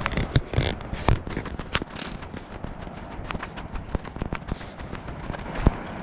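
A run of irregular sharp clicks and knocks with crackling, the loudest knocks about a second in and near the end.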